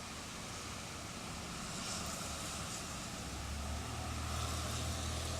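Storm wind blowing, a steady rush with a low rumble that swells about three seconds in.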